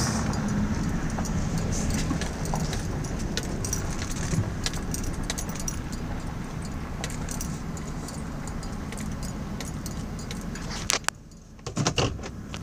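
Vehicle rolling slowly over a gravel drive, heard from inside the cab: a steady low engine and tyre rumble with scattered crackles and clicks. The sound drops out briefly about a second before the end, then a few more clicks follow.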